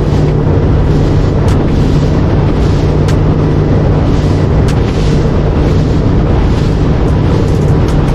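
Boat under way at speed: the outboard motor's steady low drone under heavy wind buffeting on the microphone, with a few sharp knocks.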